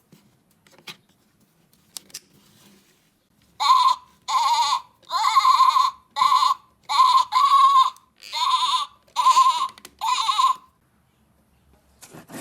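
Goat bleating, about nine loud wavering bleats in quick succession, added as a farm-animal sound effect. A few faint clicks come before the bleats.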